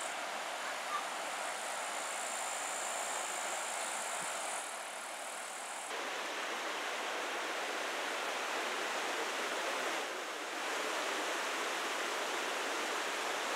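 Shallow river running fast over stones, a steady rush of water that dips briefly about six seconds in and again near ten seconds.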